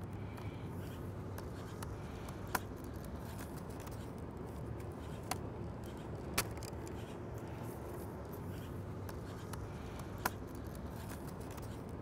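Plastic laptop screen bezel being pulled off by hand, its clips snapping loose in about four sharp clicks a few seconds apart, over a steady low background noise.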